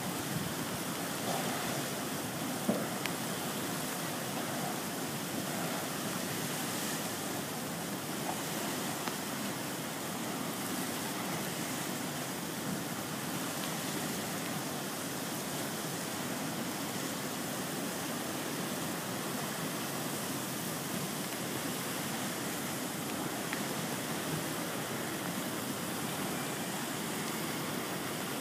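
Steady rushing of muddy flash-flood water pouring across a drought-dried lakebed: the sound of a drained lake filling back up.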